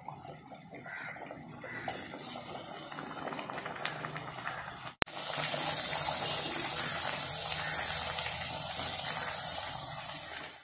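Thattai discs deep-frying in hot oil, the oil sizzling and bubbling around them. The first half is quieter with a few light clicks; about halfway through there is a sharp click and the sizzle turns much louder and steady.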